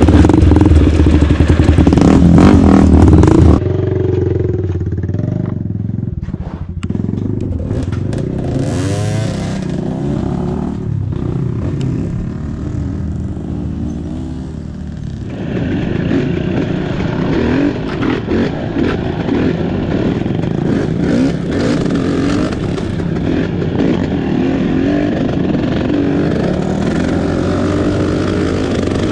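Trail motorcycle engine running while riding, loud for the first few seconds, then dropping back, and pulling harder again from about halfway through.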